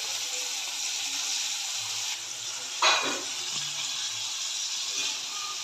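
Marinated tilapia (jilebi fish) pieces sizzling steadily in hot oil in a pan. About three seconds in there is a sudden louder burst of sizzling as another piece goes into the oil.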